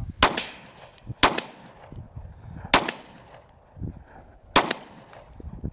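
A 9mm pistol fired four times, the shots unevenly spaced about one to two seconds apart, each a sharp crack.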